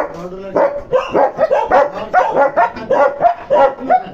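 Kennelled dogs barking without pause, about three barks a second.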